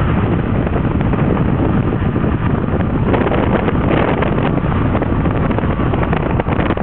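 Steady rush of wind buffeting the microphone and road noise from a moving car, with some rougher buffeting from about three to four and a half seconds in.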